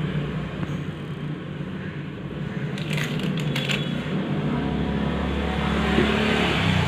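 Small metal timing chain kit parts clicking and clinking as they are handled, two short clicks about three seconds in, over a steady low background hum.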